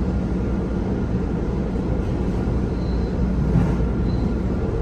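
Electric commuter train running, a steady low rumble with no breaks.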